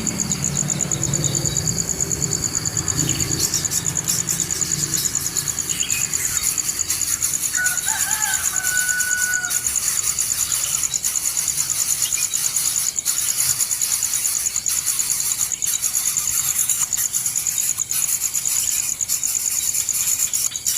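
Insects droning steadily with a fast-pulsing, high-pitched buzz. A short pitched call sounds briefly about eight seconds in.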